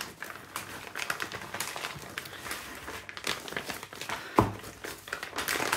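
Thick clear plastic packaging crinkling and crackling as it is pulled and worked open by hand, with one sharp thump about four seconds in.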